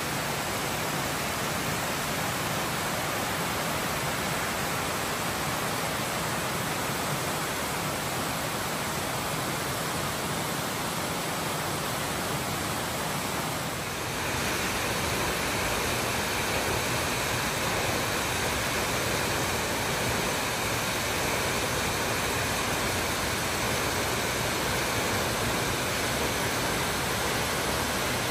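Waterfall on granite rock: a steady rush of water pouring down the rock face. About halfway through the rush becomes slightly louder and brighter as the scene changes to a taller fall.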